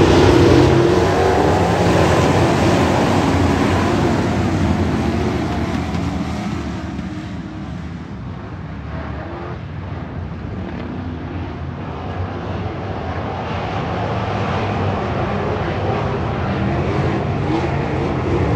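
A pack of street stock race cars' engines running hard on a dirt oval, loud at first, fading as the field goes down the far side about eight seconds in, then building again as the cars come back around.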